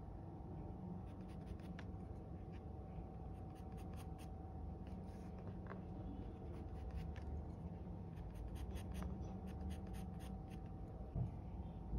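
Graphite pencil scratching on drawing paper in many short strokes, over a faint steady hum. A single soft knock comes near the end.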